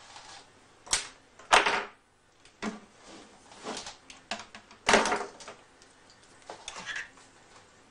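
Handling noises as a thin speaker wire is pulled through a plastic speaker enclosure: irregular scraping rustles and light knocks, the loudest about one and a half seconds and five seconds in.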